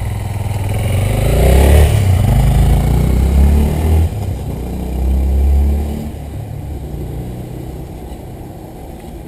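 Honda XRE 300 single-cylinder four-stroke motorcycle engine revving up through the gears, with shifts about four and six seconds in, then fading steadily as the bike rides off.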